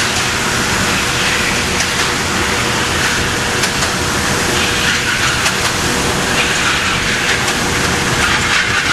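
Electric target carrier at a shooting range running steadily with a constant motor hum, bringing the paper target back down the lane. It stops near the end.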